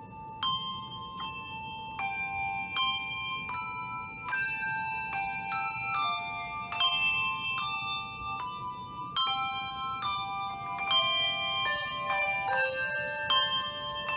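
Handbell choir playing a hymn tune on brass handbells together with handchimes. Notes are struck one or two a second and left to ring over one another, sometimes several pitches at once as chords.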